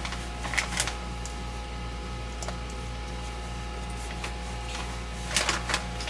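Cloth rag rubbing and wiping over the housing of a Flotec sump pump, a few short scrubbing and handling sounds near the start and again near the end, over a steady low hum.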